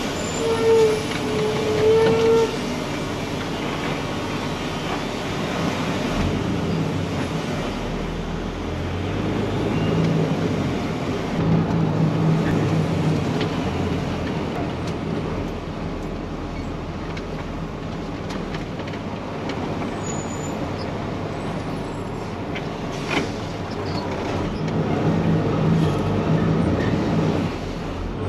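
Heavy truck running, a steady low engine rumble with road and traffic noise, and a horn sounding twice briefly near the start.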